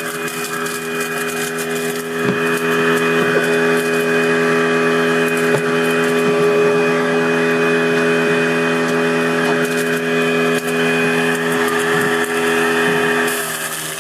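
Garbage disposal used as an apple grinder, running steadily: an electric motor hum with a grinding rattle of apple pieces on top and a few sharp knocks.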